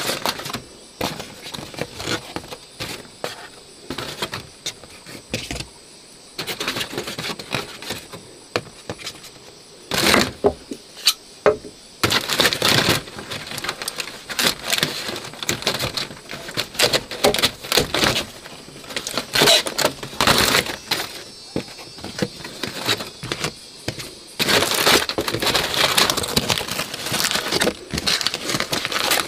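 Aluminium foil being handled, in repeated bursts of crackling and crinkling with sharp clicks, the densest spells near the middle and toward the end as the foil is folded over. A knife slicing through a raw potato comes partway through.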